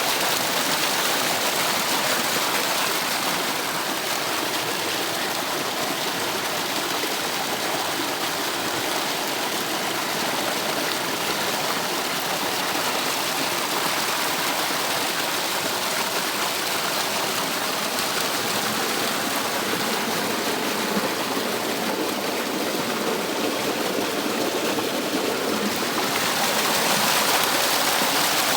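Water running over a small cascade in a stream: a steady rushing and splashing that turns a little louder and brighter near the end.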